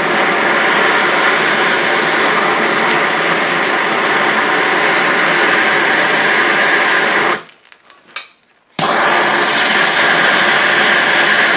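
Hand-held gas torch running with a steady rushing flame, heating a gearbox housing to break the grip of thread-locker on a bolt. The sound cuts out suddenly about seven seconds in and starts again about a second and a half later.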